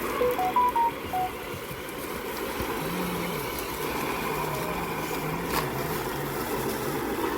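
Electric RC rock crawler's motor and geared drivetrain running steadily as it crawls over rock. Near the start, a quick run of five short electronic beeps at different pitches.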